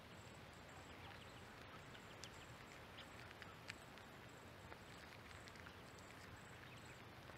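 Near silence, with faint scattered ticks and short chirps from mallard ducklings foraging for corn on gravel; one tick a little over halfway through is the loudest.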